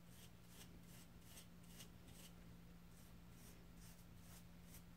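Faint scrubbing strokes, about three a second with a brief pause in the middle, as a wooden molding-plane wedge is worked by hand in a pan of cleaning mixture to lift staining. A low steady hum runs underneath.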